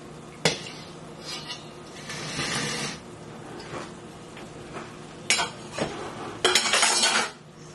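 Cookware sounds from a cast-iron pan of sautéing chicken and vegetables: a sharp clink about half a second in, then light sizzling and clattering, with two louder noisy bursts near the end.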